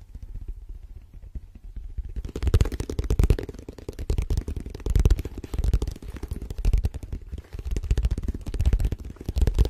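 Very fast fingertip tapping and scratching on a dark case held right against the microphone, with dull thuds as it is handled. It is softer at first and becomes a dense, rapid clatter about two seconds in.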